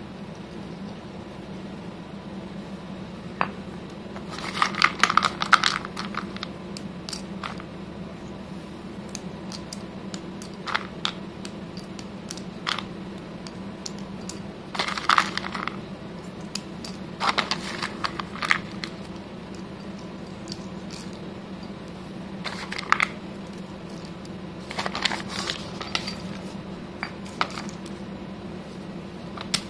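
Broken slate pencil sticks clinking and clattering as they are dropped and shuffled into a stone mortar, in short scattered clusters of sharp clicks over a steady low hum.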